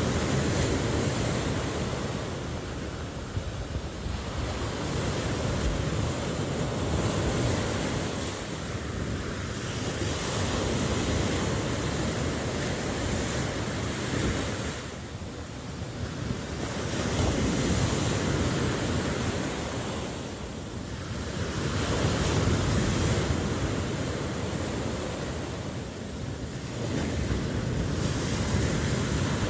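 Ocean surf: continuous waves breaking and washing ashore, swelling and easing every few seconds, with wind noise.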